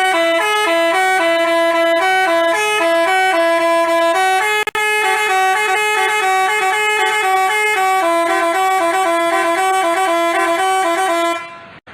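Basuri telolet multi-tone bus horn playing a quick stepped melody, several notes a second. It breaks off for an instant about halfway through, then plays on until it stops near the end.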